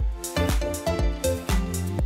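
Electronic music with a steady beat, deep bass and a keyboard-like melody.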